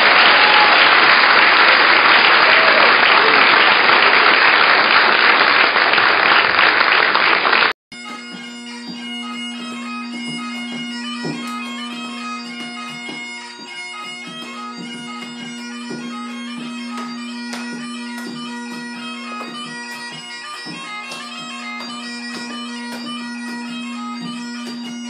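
Audience applauding loudly, with a cheer at the start, until the sound cuts off abruptly about eight seconds in. Great Highland bagpipe music follows, its steady drone under the chanter melody, with light thumps of dancing feet on a wooden floor.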